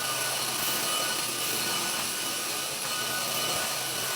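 Homeika cordless stick vacuum running steadily with a high motor whine while sucking up spilled rice.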